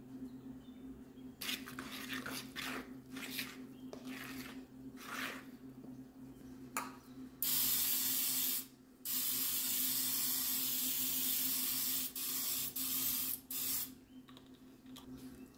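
Aerosol cooking spray hissing onto a glass baking dish: a burst of about a second, a longer spray of about three seconds, then a few short puffs. Before it, a utensil scrapes and squishes through thick applesauce cake batter in a bowl.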